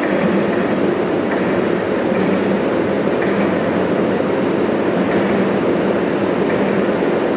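Class 90 electric locomotive running slowly into a platform, with a steady electrical hum and short high hisses every second or two.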